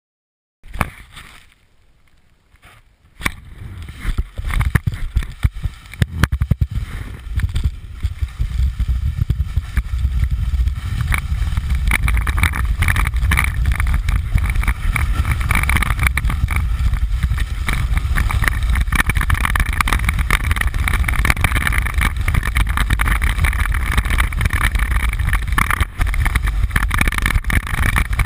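Wind buffeting the microphone of a calf-mounted action camera on a snowboard riding fast, mixed with the board scraping over packed snow. It starts about three seconds in with scattered knocks, then settles into a steady loud rush.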